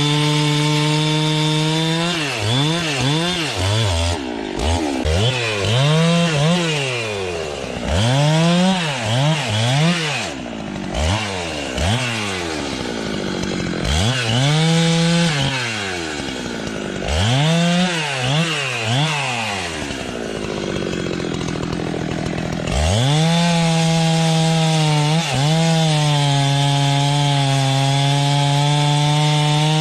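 Two-stroke chainsaw held at high speed in long steady stretches, as when sawing through wood. In between, it is revved up and let drop many times in quick succession.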